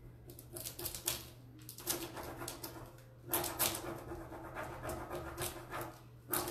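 Hands rubbing an Iron Orchid Designs transfer through its plastic backing sheet to press it onto a board: a run of quick rubbing strokes that grows louder about halfway through.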